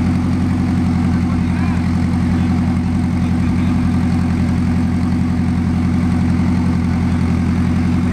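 Car engine idling steadily close by, an even, unchanging low drone.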